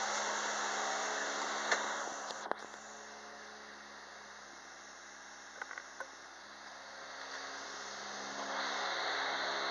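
Volvo XC90's 2.9-litre B6294T twin-turbo straight-six running steadily, quieter for several seconds in the middle and louder again near the end. There is a sharp knock about two and a half seconds in and a few light clicks around six seconds.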